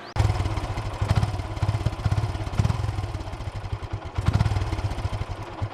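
Yamaha FZ motorcycle's single-cylinder four-stroke engine running with a fast, even exhaust beat and a couple of brief swells in level. It runs on a freshly fitted spark plug that replaced a fouled one blamed for the misfire (the "farting"), and the owner calls it damn smooth.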